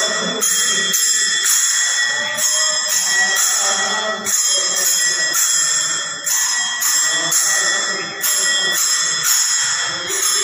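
Devotional kirtan: small hand cymbals or bells ring in a steady rhythm about twice a second, over voices singing.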